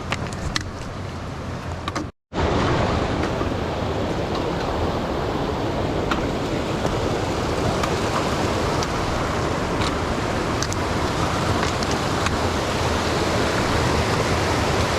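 Steady rush of river water. The sound cuts out for a moment about two seconds in, then comes back louder and fuller. A few faint clicks sound over it.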